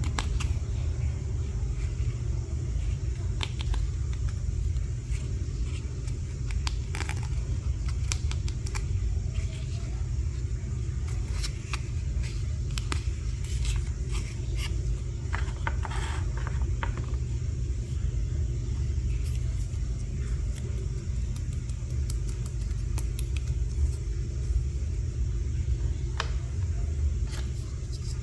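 Small plastic toy pieces being handled and set down, giving scattered light clicks and taps, busiest around the middle. Under them runs a steady low rumble.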